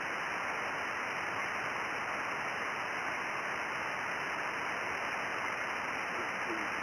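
Steady hiss of band noise from a portable HF transceiver's speaker on the 20 m band (14.338 MHz), with no station coming through; the hiss stops short above the voice range, as on a sideband receiver. Near the end a faint, fading voice shows briefly in the noise.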